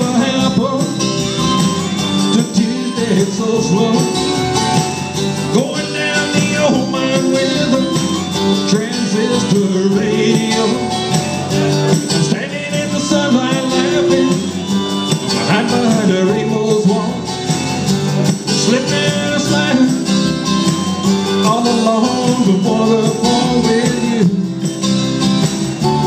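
A man singing a country song into a microphone over backing music with guitar, amplified through the bar's sound system.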